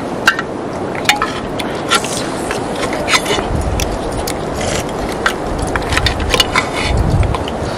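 A metal spoon clinking and scraping against a steel cooking pot and plate as curry is served, a string of sharp clinks over a steady background hiss.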